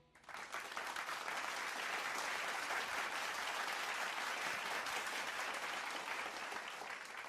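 Audience applauding after a song. The applause starts abruptly, holds steady, and tapers off near the end.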